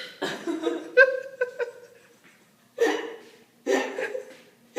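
A person burping over and over in short bursts, with laughter among them; about a second in, the sound breaks into a run of quick pulses.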